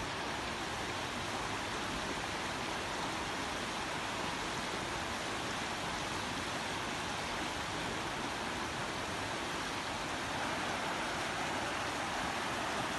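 Fast-flowing mountain river rushing over rocks: a steady, unbroken roar of water.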